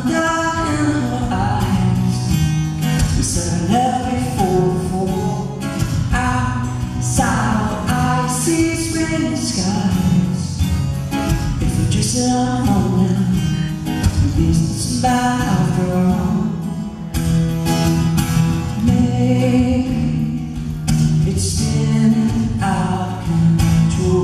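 A man singing a song while playing an acoustic guitar.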